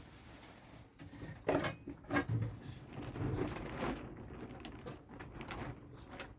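Handling noises: a couple of sharp knocks about one and a half and two seconds in, amid shuffling and rustling of objects being moved about.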